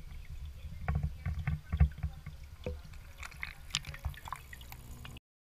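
Knocks of an action camera's housing bumping and being handled as it is lowered into a fish tank, with water splashing and trickling at the surface. The sound cuts off abruptly near the end.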